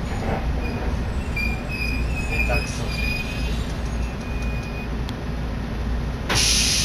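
Electric passenger train with a steady low rumble and faint high-pitched wheel squeals. About six seconds in, a sudden loud hiss starts and holds.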